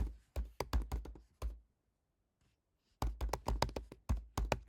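Typing on a computer keyboard: quick keystrokes in two bursts. The first runs through the opening second and a half, and the second starts about three seconds in after a short pause.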